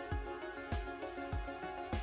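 Background music with a steady drum beat, a low kick about every 0.6 s, under sustained melodic instrument tones.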